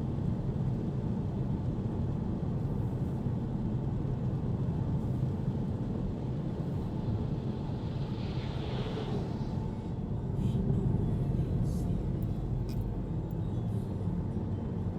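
Steady low rumble of a vehicle, with a short hiss about eight seconds in.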